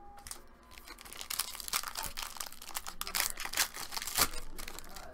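Foil wrapper of a trading-card pack crinkling and tearing as it is handled and opened by hand, starting about a second in, with a sharp snap a little after four seconds.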